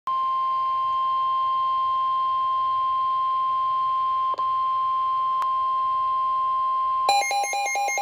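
NOAA Weather Radio warning alarm tone, a steady high tone near 1,050 Hz, from a Midland S.A.M.E. weather alert radio's speaker, signalling that a warning (a severe thunderstorm warning) is being broadcast. About seven seconds in it gives way to rapid electronic beeping.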